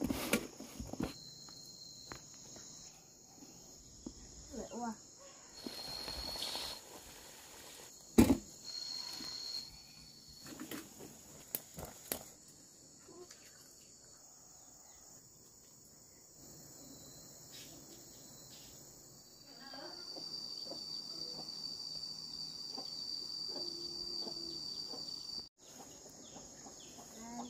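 Insects chirring in a steady high drone, with a piercing high insect trill that comes and goes and is strongest near the end before cutting off suddenly. A few scattered knocks and clicks sound through it, the loudest a sharp knock about eight seconds in.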